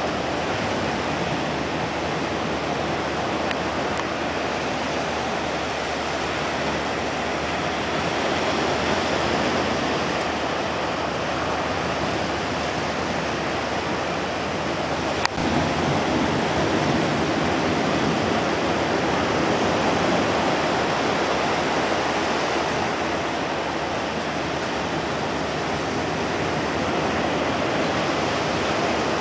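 Ocean surf washing onto a beach: a steady rush of small waves that swells and eases every several seconds, with one brief click about halfway through.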